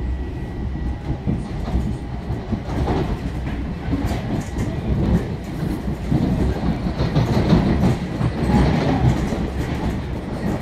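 Long Island Rail Road commuter train running, heard from inside the passenger car: a steady rumble of wheels on the rails with scattered clicks, growing louder a few seconds in.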